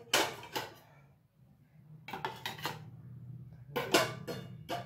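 Small stainless-steel baking bowls clanking as they are lifted and set down on a steel plate: a few scattered metal knocks, the loudest about four seconds in.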